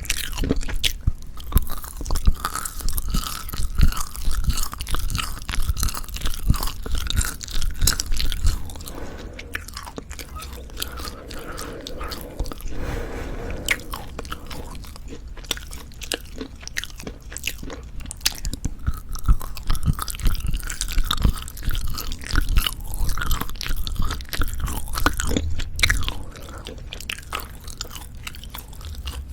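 Close-miked chewing of dried black pork jerky, with a steady run of sharp sticky clicks and tearing snaps from the chewy meat.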